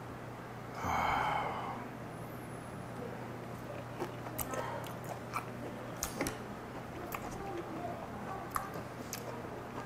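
Chewing a mouthful of raw whiteleg shrimp with sea urchin roe and sea cucumber innards: a short voiced murmur about a second in, then wet mouth clicks and smacks from about four seconds in.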